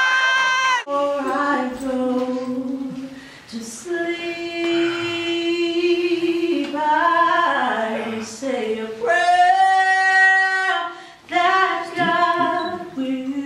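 A woman singing a slow song, holding long notes of one to two seconds each, with short breaks between phrases.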